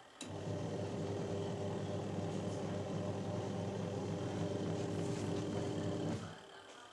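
Twin-tub washing machine's spin-dryer motor running with a steady electric hum, starting just after the beginning and cutting off about six seconds in.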